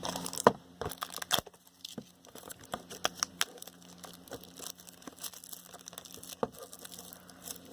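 Plastic shrink wrap crinkling and tearing as it is pulled off a trading-card box, in irregular crackles with a few sharper snaps in the first second and a half.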